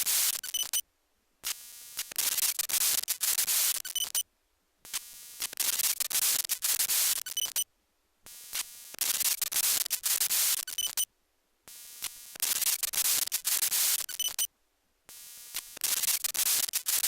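Computer speakers blaring a fault noise from the PC's audio output: a short buzzing bleep, then loud white-noise static, cutting off suddenly, the cycle repeating about every three and a half seconds with brief silences between. The noise comes from the PC itself, not the speakers, and persists across Vista, XP and different drivers.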